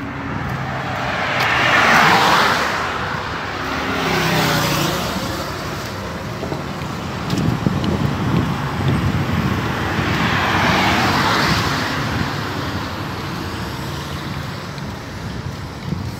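Multi-lane highway traffic passing close by: tyre and engine noise from cars and trucks swells as one vehicle goes past about two seconds in and another about eleven seconds in, over a steady low engine hum.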